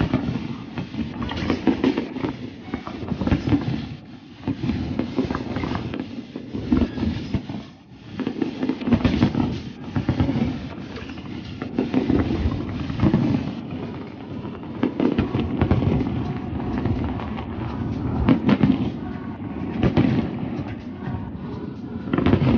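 Aerial fireworks display: many shell bursts in quick, overlapping succession, booms with crackle, easing briefly about four and eight seconds in.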